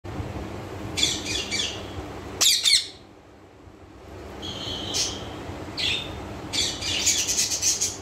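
Young green Psittacula parakeets calling in short bouts, the loudest about two and a half seconds in, with one held note around the middle and a fast run of calls near the end.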